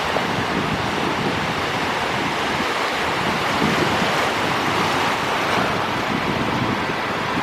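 Sea surf washing steadily onto the beach, with wind gusting against the microphone.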